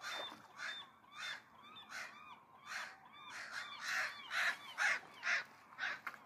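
A flock of gulls calling over and over with harsh, cawing cries, about one or two a second, louder in the second half.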